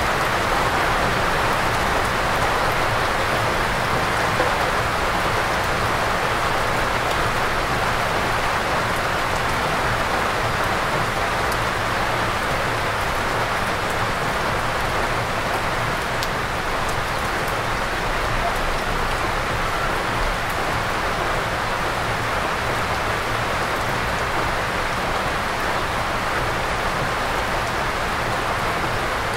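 Steady rain falling on a forested mountainside, an even wash of patter with a few sharper drops close by.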